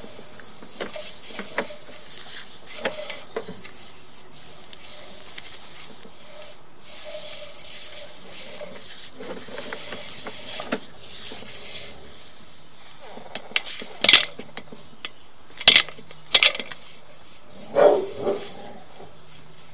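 Handling noise from feeding a sewer inspection camera's push cable into the drain line: scattered light clicks and knocks, then several sharp louder knocks and a short muffled burst in the last few seconds.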